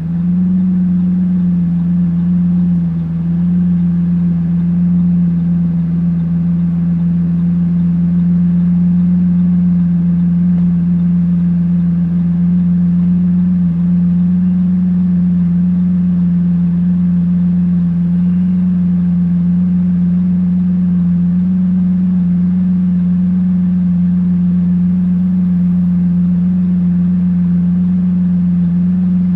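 Lamborghini Aventador S's 6.5-litre V12 breathing through a Power Craft exhaust, idling steadily at one even pitch.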